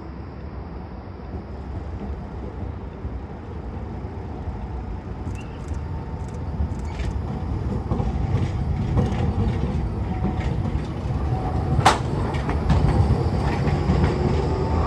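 Tram approaching, its low rumble growing steadily louder, with scattered clicks from about five seconds in and one sharp click near the end.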